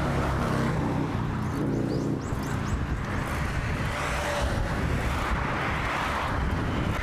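Road traffic passing close by, with a vehicle's engine hum in the first couple of seconds, under steady wind rush on the microphone of a moving bicycle.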